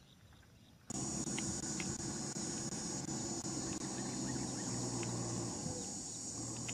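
Insects chirring in a steady high-pitched drone that starts abruptly about a second in, over a low steady hum and a few faint clicks.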